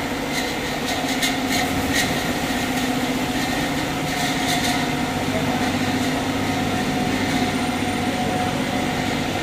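Plastic pipe extrusion line running: a steady machine hum with a few fixed tones, and sharp clicks scattered through the first two seconds and again around four and a half seconds in.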